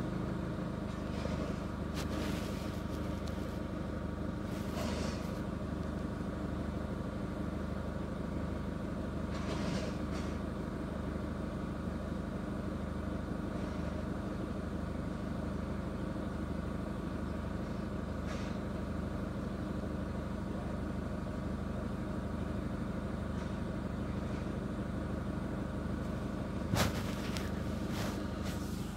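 Chevrolet Captiva diesel engine idling steadily at warm idle, heard from inside the cabin, with a few faint clicks and a brief louder knock near the end.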